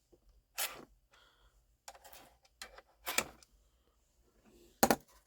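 A sharp blade cutting through the tape on a DVR's casing, in about four short scratchy strokes a second or so apart.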